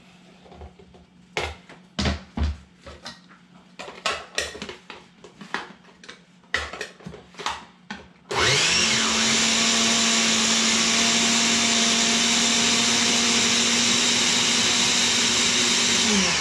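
Countertop blender liquefying chopped onion. First comes a run of knocks and taps as the onion is knocked off a cutting board into the jar. Then, about eight seconds in, the motor spins up and runs steadily for about eight seconds before winding down at the end.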